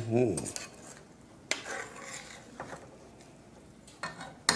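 Metal spoon stirring a wet mix of hominy and green onions in an aluminum skillet, with a few sharp clicks of spoon against pan, one about a second and a half in and a cluster near the end. A man's voice is heard briefly at the start and end.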